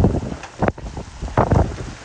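Wind gusting across the microphone in irregular low rumbling surges, the strongest near the start and again about a second and a half in.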